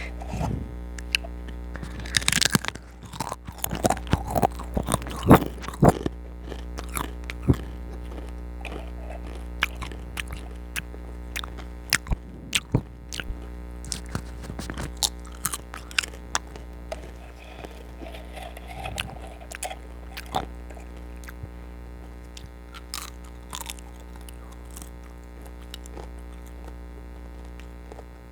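Crisp potato chips being bitten and chewed close to the microphone: sharp crunches come thick and loud in the first several seconds, then sparser, softer chewing. A steady electrical hum runs underneath.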